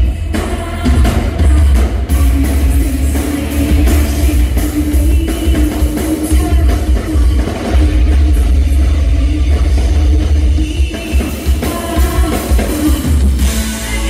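Rock band playing live through a club PA, heard from the crowd: loud electric guitar, drums and a heavy, booming bass, with a singer.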